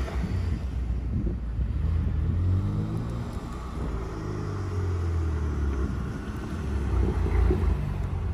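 Tuned BMW M3's twin-turbo straight-six, Stage 2 with downpipes, charge pipes and an aftermarket exhaust, driving past with a low, steady drone whose pitch dips and rises.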